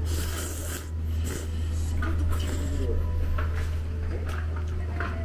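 Chopsticks stirring and lifting noodles in a ceramic ramen bowl: a string of short rubbing and scraping noises, the strongest in the first second, over a steady low hum.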